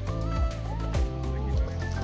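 Background music with a steady beat, about two beats a second, under a gliding melody line.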